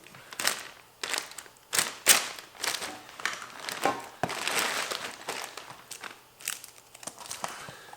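Protective plastic wrapping and tape crinkling and crackling as they are pulled and torn off a new roll cage bar, in irregular bursts with a few sharp cracks, the sharpest about two seconds in.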